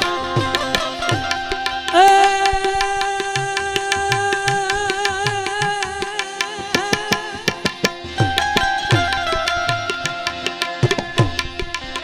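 Instrumental interlude of a Gujarati devotional song: a harmonium plays a held, slowly changing melody over tabla, whose bass strokes slide down in pitch, with a fast run of sharp percussive ticks.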